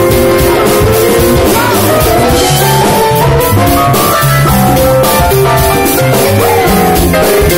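Live band playing loud dance music, with drums and hand percussion keeping a steady beat under held melodic notes.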